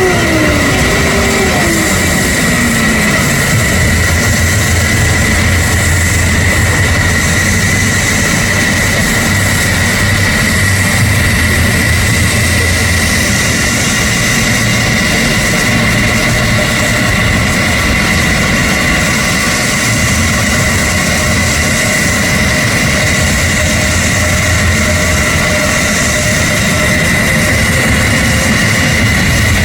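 F-15SG fighter jets' twin General Electric F110 turbofans idling on the ground, a steady high whine over a low rumble. A tone falls in pitch over the first few seconds.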